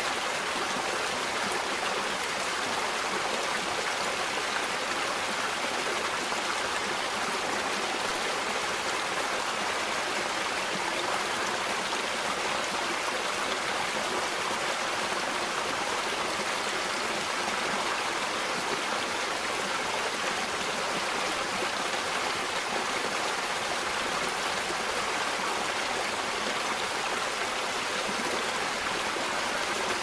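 Rapid, turbulent water of a small river rushing and splashing, recorded close up: a steady, unbroken rush with no change in level.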